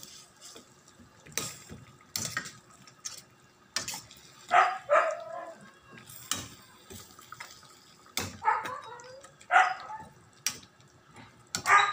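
Metal ladle knocking and scraping against a stainless steel pan as beef ribs and potatoes are stirred in their cooking liquid, a sharp clack every second or two. A dog barks several times between the knocks.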